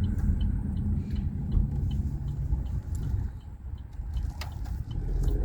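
Car driving slowly, heard from inside the cabin: a steady low engine and road rumble with a faint regular ticking, the rumble growing louder near the end as the car speeds up.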